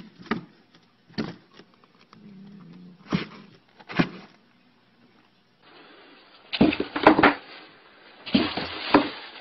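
Cats scrabbling inside cardboard boxes: a string of sharp thumps and knocks on the cardboard as a cat swats and bats at the box, then louder clusters of thumping and scuffling as another cat leaps about in a box.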